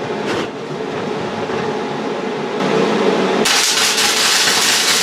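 Jefferson MIG welder running gasless flux-cored wire, its arc crackling loudly as a weld is laid on the steel of an oil drum. The arc strikes about three and a half seconds in.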